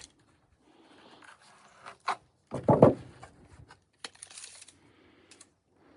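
Cedar boards being handled and sorted: scattered wooden knocks and clicks with some rustling, and a heavier thump about three seconds in.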